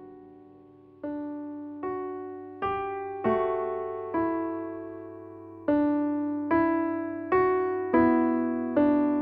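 Background music: a slow, gentle piano piece, a note or chord struck about once a second and left to ring and fade, growing louder after the first second.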